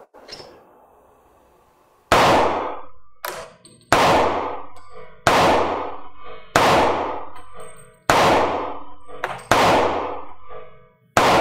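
Beretta PX4 Storm pistol in .40 S&W fired seven times, a shot every second and a half or so, each report echoing and dying away over about a second. A couple of fainter sharp sounds fall between some of the shots.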